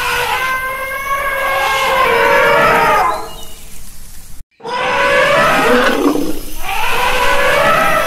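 Elephant trumpeting in long, wavering calls. A brief gap of silence cuts in about halfway through, then the calls start again.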